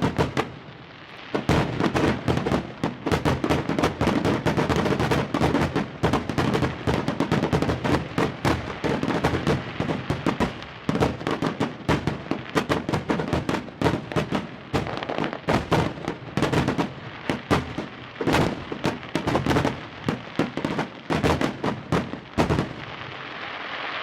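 Fireworks going off in a dense, rapid barrage of bangs and crackles, many per second. It starts about a second in and stops suddenly near the end, leaving a steady hiss.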